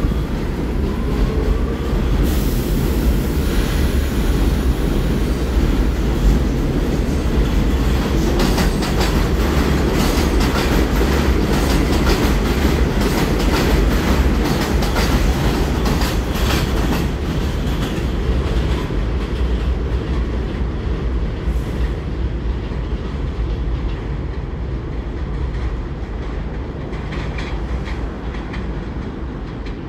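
R46 subway train pulling out of an elevated station, its wheels clattering over the rail joints. The rumble stays loud for the first twenty seconds or so, then fades as the train moves away.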